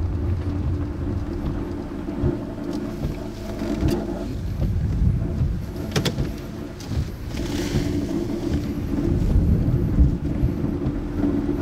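A car being driven: steady engine hum and low road rumble, with scattered knocks and a brief hiss about seven and a half seconds in.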